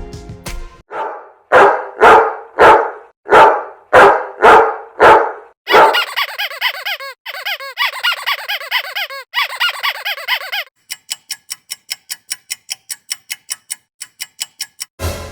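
A dog barking about eight times at an even pace, followed by high squeaking and then a quick, steady run of short clicks.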